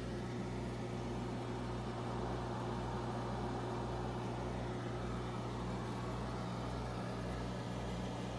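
Steady electrical hum of aquarium air pumps and filtration, with a faint hiss.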